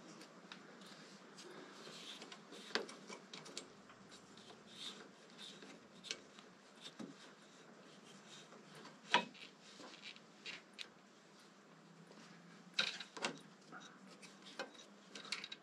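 Faint, scattered clicks and taps of hand work on a motorcycle clutch cable adjuster. The sharpest click comes about nine seconds in, and two more follow close together a few seconds later.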